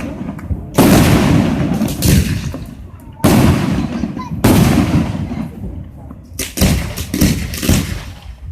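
Fireworks going off: about five loud bangs, each trailing off in a long rumble, then a quick run of sharp crackling cracks near the end.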